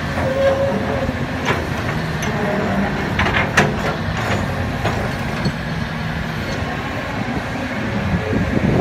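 Hyundai R220LC-7H crawler excavator's diesel engine running steadily as the boom and bucket move, with a few sharp knocks between about one and four seconds in.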